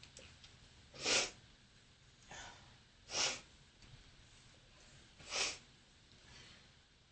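A person sneezing hard three times, about two seconds apart, with fainter breathing sounds between, while ill with bronchitis.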